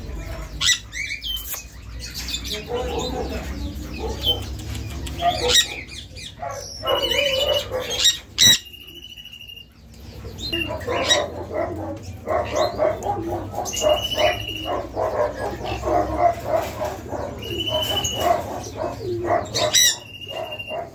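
Caged conures giving harsh, piercing screeches again and again, mixed with other birds' calls. Several short, level whistled notes stand out, about seven, fourteen, seventeen and twenty seconds in.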